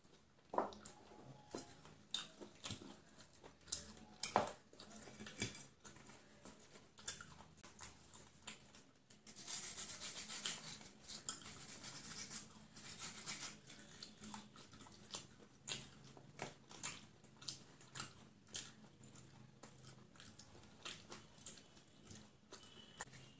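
Eating crispy fried chicken: irregular crisp crunches and wet chewing sounds, close up. From about nine to fourteen seconds in there is a longer run of crackling as the fried coating breaks.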